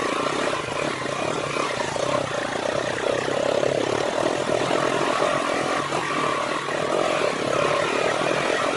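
Motorcycle engine running steadily under way, mixed with heavy wind rush on the microphone.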